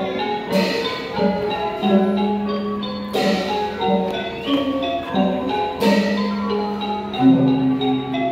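Thai piphat mon ensemble playing music for the Mon dance: struck xylophone and gong-circle notes ringing over one another, with a sharp accented stroke about every three seconds.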